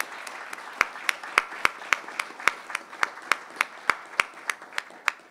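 A few people applauding. One person's claps are loud and close, about three to four a second, over softer clapping from the others. The applause dies away and stops near the end.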